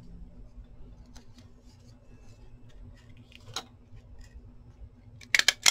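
Paper scraps and card being handled with light rustles and small clicks, then a quick run of sharp clicks near the end from a metal desk stapler being worked.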